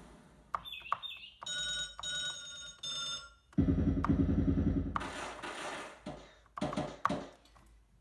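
Akai MPK Mini Play's built-in sound-effect presets played one after another: a few short bird-like chirps, then a ringing telephone tone for about two seconds, then a loud, pulsing helicopter-rotor sound, the loudest part. Noisy hiss-like bursts follow near the end as the presets run on toward the gunshot sound.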